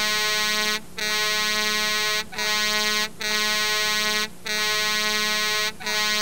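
A steady, buzzy electronic tone, held for about a second at a time and broken by short gaps, six times over.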